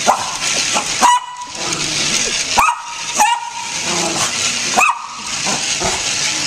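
Small curly-coated dog barking and yelping excitedly in sharp, high calls, about five of them, over a steady hiss.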